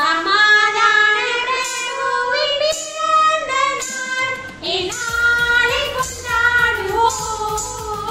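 A song with a high singing voice over backing music; a low, steady beat joins about halfway through.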